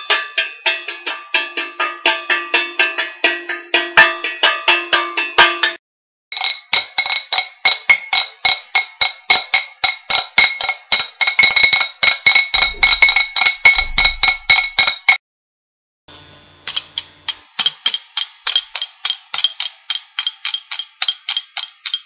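Homemade Christmas percussion played one after another in rhythm. First come metallic strikes with a ringing tone. Then a ridged anise bottle is scraped with a fork in quick, even strokes, and near the end cutlery is clinked together.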